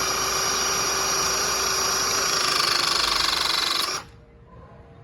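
Battery hydraulic crimping tool (ECT-12042, 12-ton C-head) running a trial press cycle: its electric motor and hydraulic pump whine steadily, sag slightly in pitch about two and a half seconds in as pressure builds, then cut off suddenly about four seconds in.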